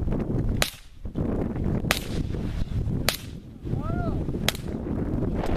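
Gunshots: four sharp, short shots a little over a second apart, with a fainter fifth near the end, over a steady low rumble.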